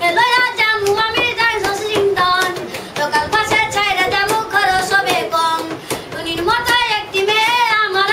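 A boy singing a Bengali folk song, his long held notes bending in pitch and wavering fast.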